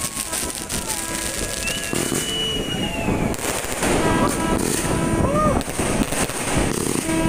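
Fireworks going off overhead: a dense run of sharp pops, bangs and crackles as aerial shells and comets burst.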